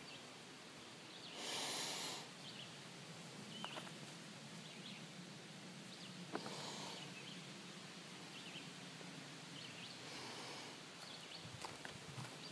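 A hiker walking a leaf-littered forest trail: faint footsteps and rustling, with three brief hissing breaths about four seconds apart.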